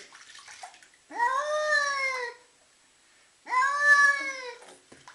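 Domestic cat crying twice, two long drawn-out wails that rise and then fall in pitch, like a crying baby: the cat protesting at being bathed.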